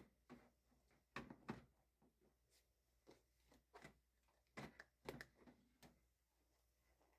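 Faint, scattered clicks and knocks of plastic printer parts being handled, as toner cartridges and a drum are swapped in a laser printer.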